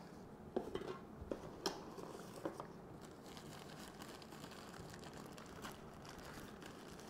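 Packaging being handled: light rustling and a handful of small clicks and taps in the first few seconds, then only faint room tone.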